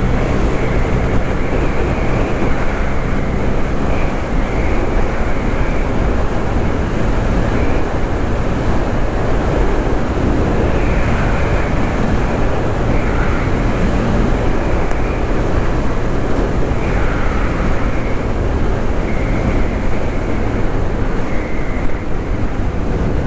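Honda Grom's 124 cc single-cylinder engine running hard at around 60 mph in fifth gear, under steady heavy wind noise on the helmet microphone.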